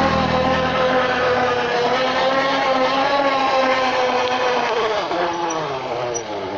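Cheap plastic bicycle 'exhaust' flicked by the turning wheel's spokes, making a fast motorbike-like buzz. The pitch holds steady, then falls from about five seconds in as the bike slows down.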